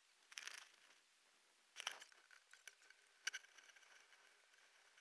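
Faint scrapes and crunches of a digging fork driven into wet beach sand, three strokes about a second and a half apart, with a few light ticks of sand between them.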